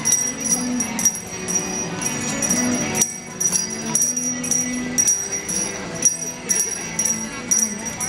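Salvation Army collector's hand bell being rung, sharp ringing strokes about two to three a second in an uneven shaking rhythm. Music with held low notes plays underneath.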